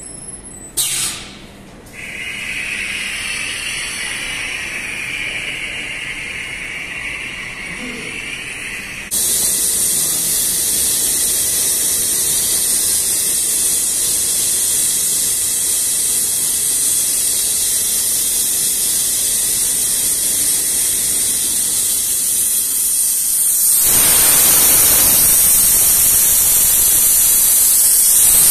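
Steady air hiss from an industrial powder vacuum-conveying and dosing system, with a short loud burst about a second in. The hiss jumps suddenly louder and higher about nine seconds in, and gains a fuller, lower rush near the end.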